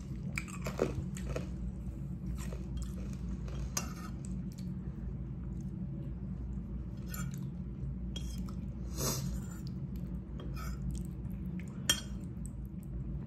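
Close-miked eating: a metal fork clinking and scraping against a ceramic bowl of spaghetti, with chewing in between. The sharpest clinks come about a second in and near the end.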